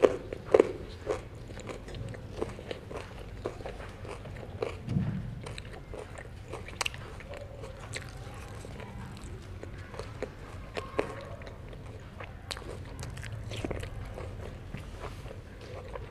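Close-miked eating of herring: biting and chewing with irregular short clicks and smacks, one louder low chew about five seconds in.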